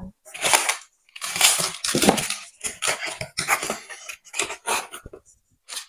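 Cardboard box and packaging being handled: irregular rustling, scraping and crinkling noises in quick bursts, with brief pauses.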